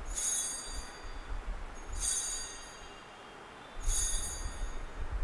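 Altar bells rung three times, about two seconds apart, each a bright high jingle that dies away within a second, marking the elevation of the chalice at the consecration.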